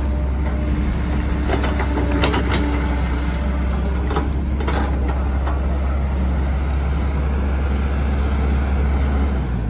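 Caterpillar E120B hydraulic excavator's diesel engine running with a steady low drone while it digs and swings mud, with several sharp metallic clanks from the bucket and arm about two seconds in and again around four to five seconds. The engine note changes just before the end.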